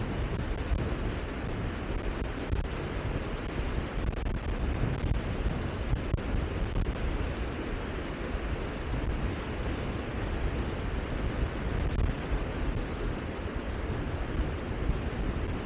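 Steady wind noise on the microphone, a low rumble that swells and eases slightly.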